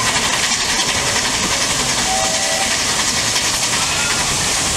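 Steady, loud hiss of escaping steam from a 2 ft gauge steam locomotive, with faint short whistle notes about two seconds in and again near four seconds.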